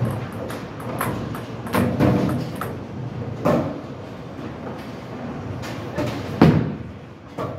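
Bowling alley noise: a low rumble of bowling balls rolling and pinsetter machinery, with scattered knocks and clatter. The loudest sound is a sharp thud about six and a half seconds in as a bowling ball is released onto the lane.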